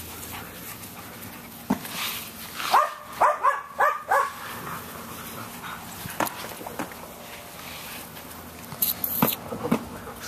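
Five-week-old puppies barking in a quick run of about five high, short barks about three seconds in, with a few scattered sharp rustles and clicks around it as they tug at a toy.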